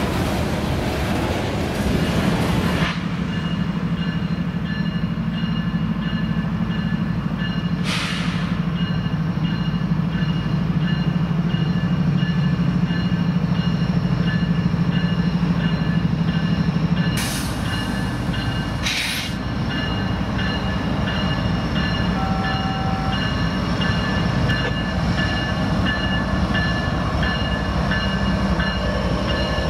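A train running on the rails, with a steady low engine rumble that eases a little about seventeen seconds in and faint steady high tones above it. Three short sharp noises cut in, one about eight seconds in and two more around seventeen to nineteen seconds.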